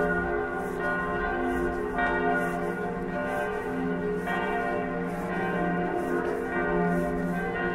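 Several church bells pealing together, fresh strikes coming every couple of seconds while the earlier tones ring on.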